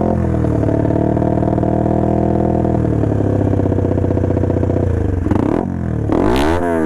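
Motorcycle engine revved and held high through an aftermarket exhaust with a half baffle fitted, a loud throbbing note likened to a helicopter. About a second before the end the revs fall away and climb again.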